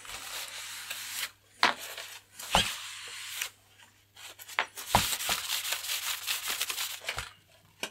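Paper towel rubbing and wiping over a carbon-fibre glider wing in short bouts, wiping off the glue squeezed out from under the laminate, with a few sharp knocks and clicks in between.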